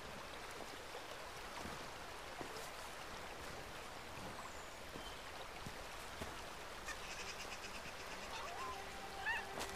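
A rocky stream rushing steadily. Near the end a soft sustained music score fades in, along with a few short, high rising squeaks.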